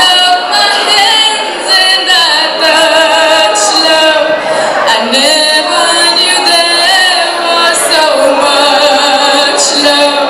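Singing: a voice holding long, wavering notes, with little bass beneath it.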